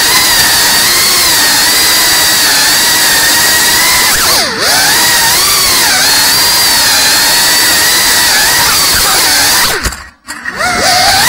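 FPV drone's brushless motors and propellers whining at high pitch, the pitch wavering up and down with the throttle. The whine dips briefly about four and a half seconds in, then near the end the throttle is cut and the sound drops away for a moment before the motors spin back up.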